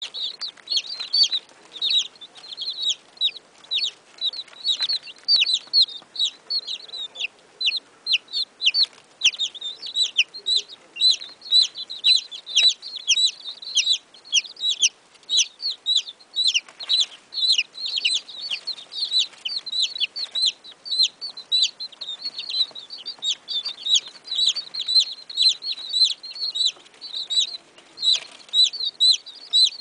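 A brood of baby chickens peeping: many short, high-pitched chirps overlapping, several a second, without a break.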